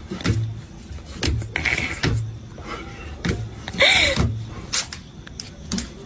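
A cat and a dog scuffling on a tiled floor, the cat swatting at the dog: an irregular run of knocks and bumps, with a short, louder cry about four seconds in.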